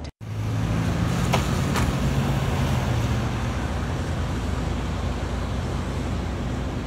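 A motor vehicle's engine running steadily with a low hum, under a continuous rushing noise.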